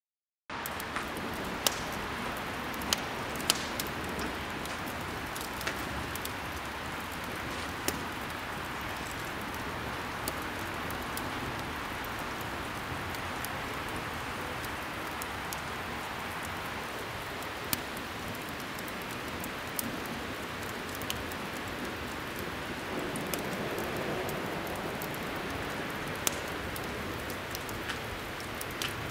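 Small open fire burning: a steady hiss with sharp crackles and pops scattered through it, several close together in the first few seconds.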